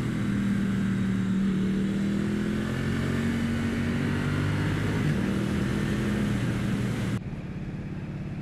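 Triumph Street Twin's 900 cc parallel-twin engine running at road speed under the rider, with wind rush over it. About seven seconds in, it drops abruptly to a quieter engine note with less wind.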